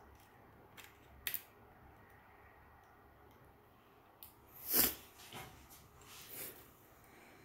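Hands handling an Olympus OM-2n film camera and T32 flash: a sharp click about a second in, then a louder short scrape near the middle and softer rustles after it.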